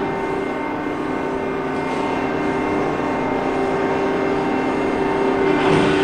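Factory machinery ambience: a steady industrial hum with several droning tones over a bed of mechanical noise, with a brief swell of hissing noise near the end.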